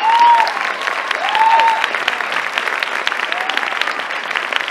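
Theatre audience applauding steadily, dense clapping with a few rising-and-falling shouted cheers over it.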